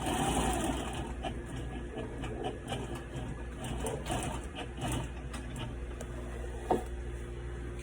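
Adler 67 industrial sewing machine stitching through thick ratchet-strap webbing: a steady motor hum under the busy rattle of the needle, with one sharp click near the end.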